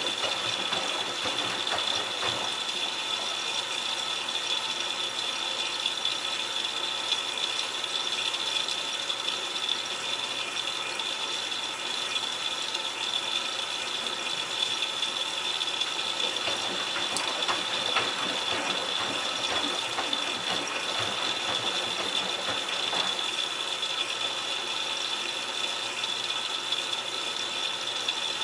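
Miele Touchtronic W3033 front-loading washing machine in the wash phase of its delicate cycle: the drum turns with water sloshing and splashing over the laundry, over a steady high whine.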